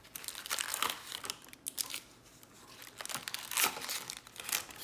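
Plastic wrapping crinkling and tearing in irregular crackles as a sealed trading-card hobby box is unwrapped and opened.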